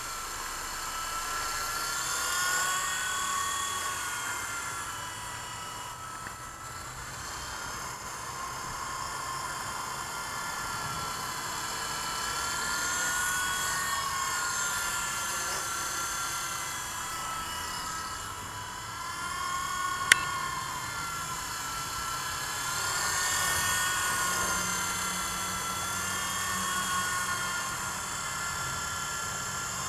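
WLtoys V912 RC helicopter in flight: the electric motor and rotor whine, wavering up and down in pitch every few seconds as the throttle and distance change. A single sharp click sounds about two-thirds of the way through.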